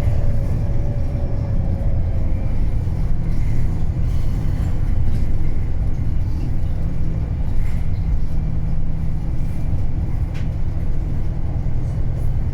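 Cummins ISB diesel engine of a 2009 Wright Pulsar 2 single-deck bus running with a steady low rumble, with a faint falling whine in the first couple of seconds.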